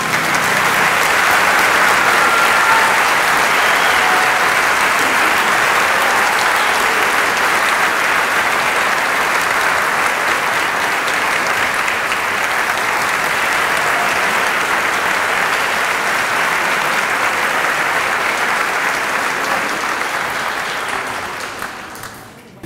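Large audience applauding steadily, tapering off near the end.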